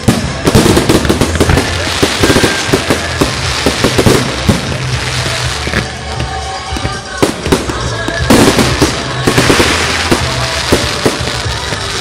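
Fireworks display: aerial shells banging and crackling in rapid volleys, with a dense barrage at the start, a lull in the middle and a second dense barrage about eight seconds in.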